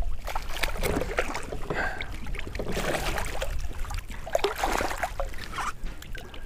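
Hooked smallmouth bass splashing at the water's surface beside a kayak as it is brought in and lifted from the water, in a run of irregular splashes.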